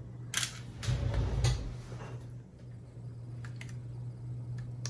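A few light clicks and small knocks from handling the cassette player and tools on the bench, closer together in the first second and a half and sparser later, over a steady low hum.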